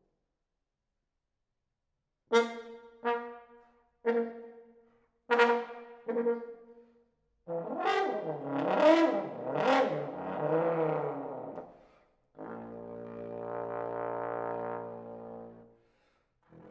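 Solo trombone. After about two seconds of silence come five short, sharply attacked notes on the same pitch, each dying away. Then a dense passage of several bending tones sounding together, multiphonics, and near the end a long held low note.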